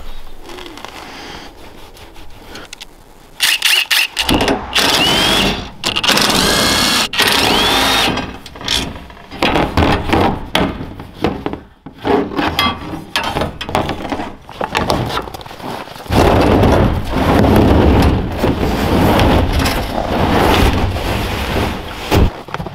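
Cordless drill/driver running in short bursts with brief rising whines as it spins up, backing out the fasteners on an IBC tote's steel cage. This is followed by a longer stretch of loud scraping and knocking as the plastic tote is worked loose from the cage.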